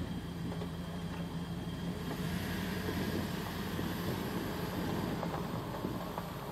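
2001 Dodge Ram 2500's 5.9-litre V8 gas engine running steadily at an even pitch.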